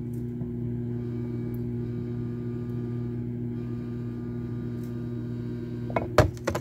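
Microwave oven running with a steady electrical hum while it heats a cup of soft plastic. A few sharp knocks come near the end.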